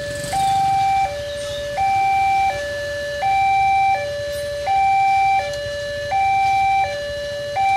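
Railway level-crossing warning alarm sounding a steady high-low two-tone electronic signal, each tone held for about three-quarters of a second, the higher tone louder. It is the warning that a train is approaching the crossing.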